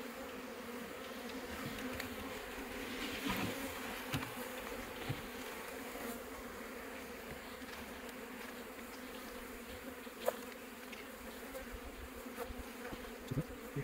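Honeybees from an opened hive buzzing as a steady hum while their comb frames are handled, with a sharp click about ten seconds in.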